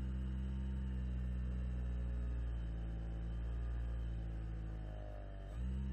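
Electric motor and propeller of a radio-controlled model biplane running at low throttle on a landing approach: a steady drone that eases a little, then briefly swells about five and a half seconds in.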